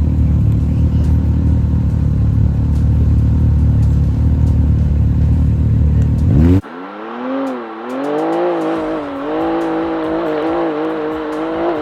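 Race UTV on course: a loud, heavy low engine and drivetrain rumble, then, after an abrupt cut about six and a half seconds in, a higher engine note that rises, dips and climbs again as it revs at speed.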